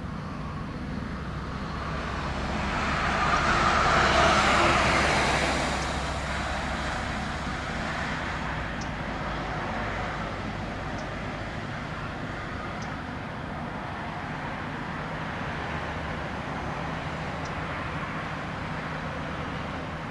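A road vehicle passes, swelling and fading about four seconds in, over the steady low drone of a passing inland motor tanker's diesel engine.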